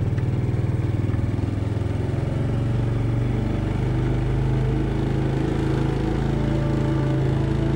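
Italika XT110RT scooter's small single-cylinder engine running steadily as it rides along at low speed.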